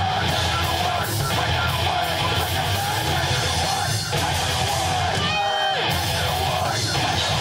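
Live heavy rock band playing loud, with distorted guitars, drums and yelled vocals. A held, pitched note slides down a little past the middle.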